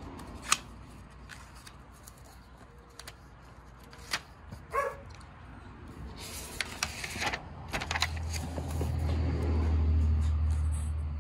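Binder pages being handled and turned: a few sharp clicks and a stretch of paper rustling, with a short bark about five seconds in. A low rumble swells up over the last few seconds, peaking near the end.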